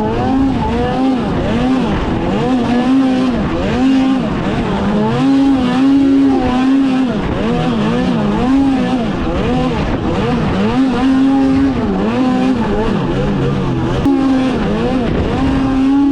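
Snowmobile engine revving up and down over and over, its pitch climbing and dropping every second or two with a few short steady stretches, as the throttle is worked through tight turns.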